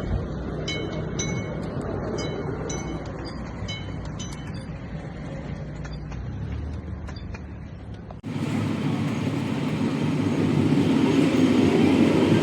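Passenger train running, a steady low rumble with light tinkling chime-like tones over the first few seconds; about eight seconds in the sound changes abruptly to a louder rushing rumble.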